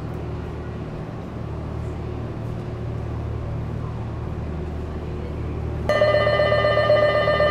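A steady low hum of stationary trains at the platform. About six seconds in, a station departure bell starts abruptly and rings on loudly as a continuous trilling electric ring.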